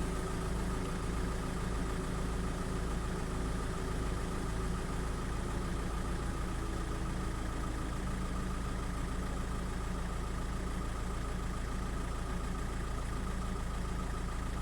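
Car engine idling steadily, with a faint tone that slowly drops in pitch and fades out about halfway through.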